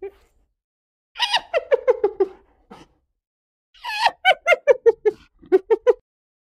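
Hyena giggling, the rapid 'laughing' call: two bouts of quick, pitched yelping notes, about five a second, the pitch dropping through each bout.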